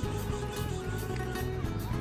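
Background music with a plucked guitar.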